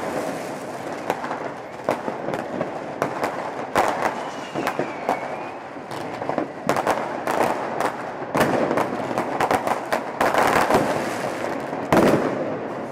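Dense New Year's Eve fireworks: continuous crackling with many overlapping sharp bangs of rockets and firecrackers, and a brief whistle about five seconds in.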